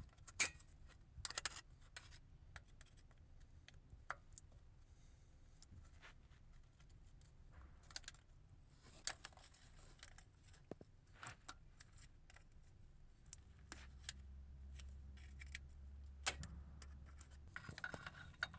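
Faint, scattered clicks and scrapes of a small screwdriver tip prying at the oil cooler line fittings and their plastic dust shield and retaining spring clips.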